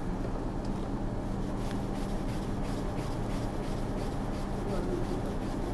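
Motorcycle bar-end weight being screwed into the handlebar end by hand: faint rubbing with light ticks as the fingers turn it, over a steady low hum.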